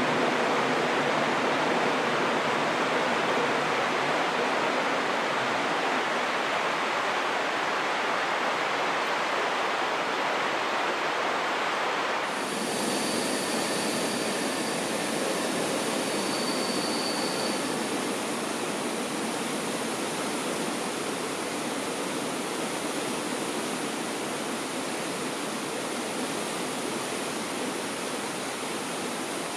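Steady rushing of a fast mountain river, an even noise without rhythm, whose tone changes abruptly about twelve seconds in.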